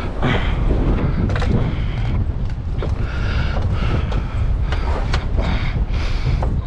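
A heavy metal stove being wrestled upright, with scattered knocks and scraping of sheet metal over a steady rumble of wind on the microphone.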